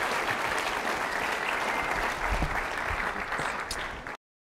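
Audience applauding steadily, dying down slightly before cutting off abruptly near the end.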